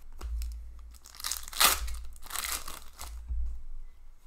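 A stack of trading cards sliding and rubbing against each other as the cards are flipped through by hand: two long papery swishes, with a few light clicks.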